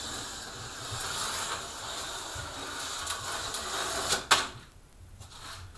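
HO-scale slot car running laps on a plastic track, its small electric motor whirring steadily. About four seconds in it crashes off the track with a single sharp clack, and the running noise drops away.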